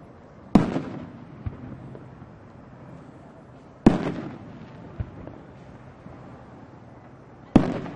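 Fireworks going off: three loud bangs about three and a half seconds apart, each trailing off briefly and followed about a second later by a fainter pop.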